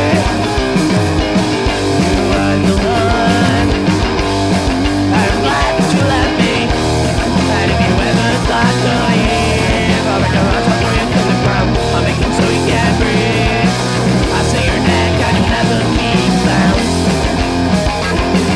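Punk rock band playing live, electric guitar to the fore, at a loud, even level.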